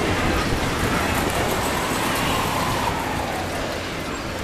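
Pharaoh's Fury swinging-ship ride in motion: a steady mechanical rumble and rushing, with a tone that rises and falls over a couple of seconds as the boat swings.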